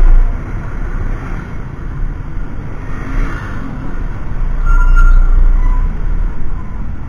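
Wind rushing over an action camera's microphone on a moving Honda Click 150 scooter, with road and traffic rumble underneath. It is loudest right at the start and again about five seconds in.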